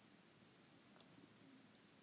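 Near silence: faint room tone, with a tiny tick or two.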